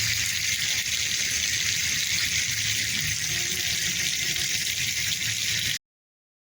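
A steady, high-pitched hissing rush that starts and stops abruptly.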